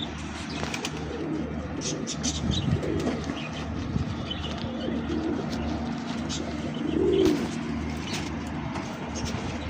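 Domestic pigeons cooing, several low rolling coos, with a few light clicks among them.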